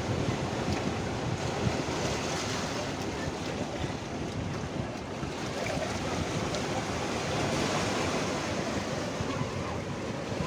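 Sea surf washing steadily onto the shore, with wind buffeting the microphone as a gusty low rumble.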